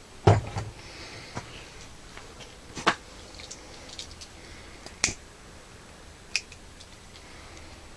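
A knock near the start, then three sharp clicks a second or two apart as a lighter is struck to light the mini aluminium alcohol stove.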